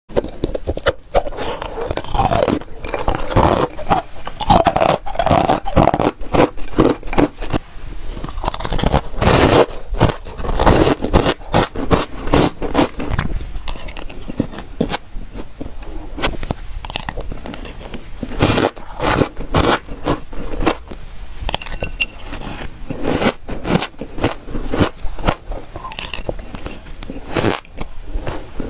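Freezer frost being scraped and crunched while it is eaten: a dense run of irregular crunches and scrapes, busiest in the first half.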